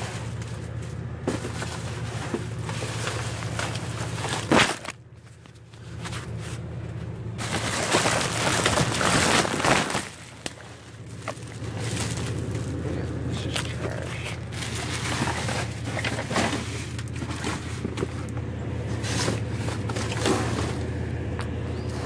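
Car running, a steady low hum inside the cabin, broken by a sharp loud knock about four seconds in and a few seconds of loud rustling noise around the middle.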